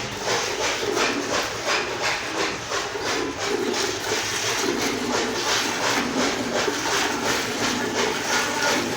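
Cow being milked by hand: jets of milk squirting into a pail in a steady rhythm of about three squirts a second.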